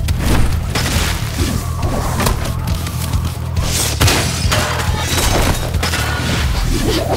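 Background music with a steady bass, overlaid with several crashing smash sound effects as a machine is broken apart with a bat; the hardest crash comes about four seconds in.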